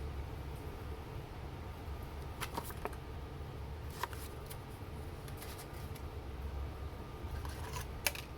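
A few scattered light clicks and taps from packaging being handled and opened, the sharpest near the end, over a steady low hum.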